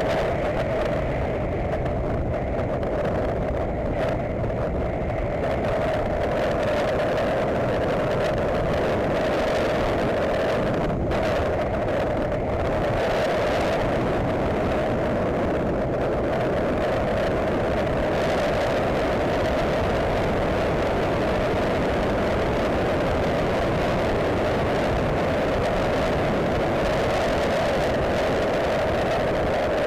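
Motorcycle riding at a steady speed, its engine drone held at an even pitch under a steady rush of wind and road noise.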